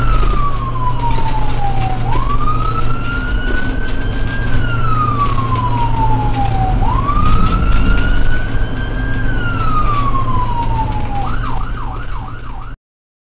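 Ambulance siren wailing, rising and then falling slowly in pitch about every four and a half seconds over a steady low rumble. Near the end it switches to a fast yelp, then cuts off suddenly.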